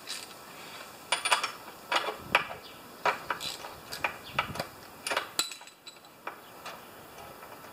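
About a dozen irregular metallic clicks and clinks from a socket ratchet and its socket as a spark plug is loosened and taken out of a lawn mower engine. A last sharp clink comes about five seconds in, then it goes quiet.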